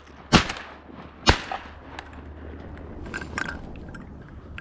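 Two shotgun shots about a second apart, both in the first second and a half, each a sharp crack with a short tail.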